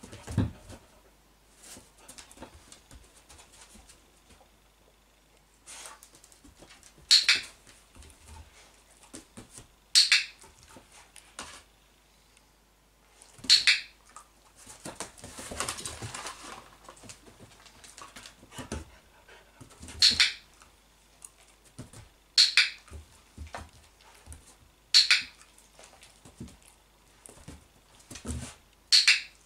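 A dog-training clicker clicking seven times, a few seconds apart, each click marking the dog resting its chin on the chair seat. Softer sounds of the dog moving about come in between.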